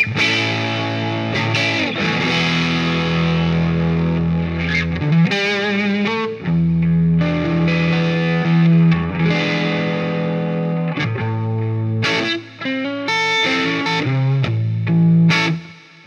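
2017 Gibson Firebird T electric guitar, stock, through a Mars Specialist amp and a 2x12 Shaw Audio cabinet, playing an overdriven tone. It rings out sustained chords and single notes, some with wavering vibrato, and the playing turns choppier with short breaks near the end.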